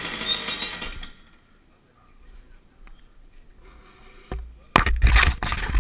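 The 125 cc two-stroke engine of a KZ shifter kart runs at low revs and cuts out about a second in, leaving things fairly quiet. Near the end come loud rustling, scraping and knocks right on the microphone as the helmet-mounted camera is moved about.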